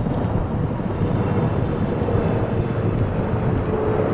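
Boeing 777-300 jet airliner passing low overhead, its twin jet engines giving a loud steady rumble, with a faint whine that drops slightly in pitch near the end.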